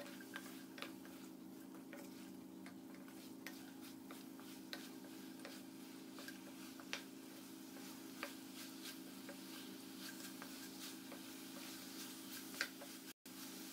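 Spatula stirring spice-coated chicken pieces in a steel kadai: irregular sharp clicks and scrapes of the spatula against the pan over a faint sizzle. A steady low hum runs underneath.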